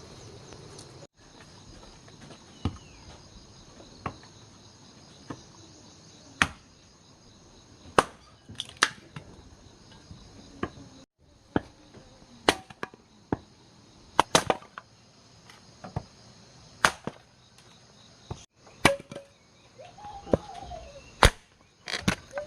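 Sharp knocks or taps at irregular intervals, roughly one a second, over a steady high chirring of crickets or other insects.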